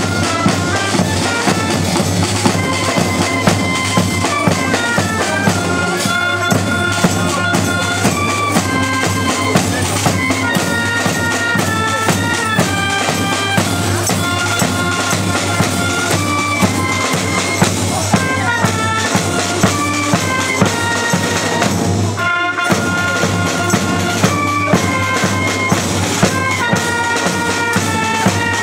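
Marching band music: bass and snare drums beat a steady march under a piped melody held over a continuous drone.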